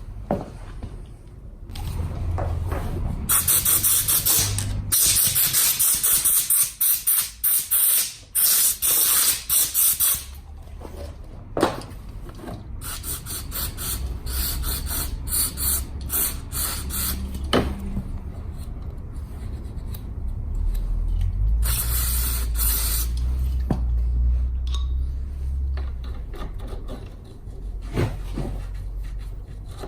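Pressurised spray hissing in a run of short bursts, then once more later, during work on a scooter's seized rear wheel brake, with a few sharp metal clanks of tools or parts.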